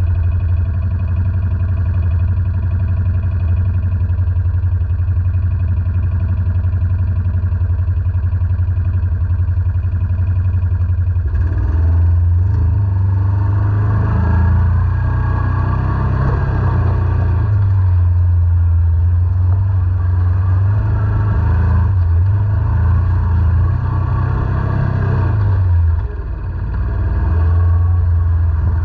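ATV engine idling steadily, then running up and down in pitch as the quad pulls away and rides along the trail, easing off briefly near the end.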